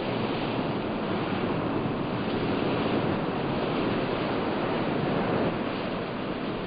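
Steady rushing of surf washing in a sea cave, swelling slightly.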